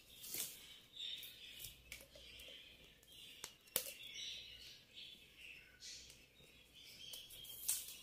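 Plastic basket-weaving wire strands faintly rubbing against each other as they are twisted by hand into a handle, with a few light clicks, the sharpest about four seconds in.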